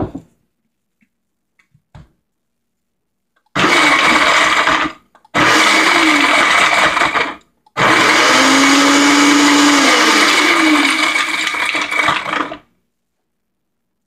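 Countertop blender pulsed three times, grinding raw cashews with a little water into a cashew cream; the last run is the longest, about five seconds, with the motor's pitch dipping and rising as it works.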